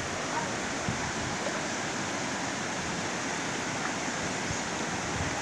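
Steady rushing of flowing floodwater, an even hiss with no breaks.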